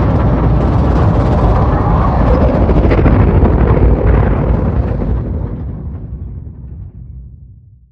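A loud, deep rumble from a movie trailer's closing sound effect, like the drawn-out aftermath of an explosion. It fades away over the last three seconds.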